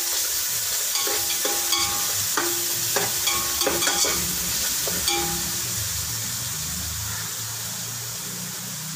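Onions and ginger-garlic paste sizzling steadily as they fry in a metal pot. For the first five seconds or so, a slotted metal spoon stirs them, knocking and scraping against the pot with short ringing clinks; after that the sizzle goes on alone.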